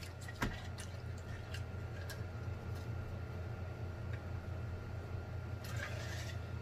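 Faint sounds of drinking from a large glass jar: a soft knock about half a second in, scattered small clicks and swallows, and a brief breathy sound near the end as the jar comes down, over a steady low hum.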